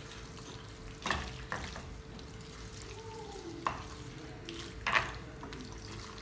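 A spoon stirring chicken gizzards in a pot over faint sizzling, knocking against the pot about four times.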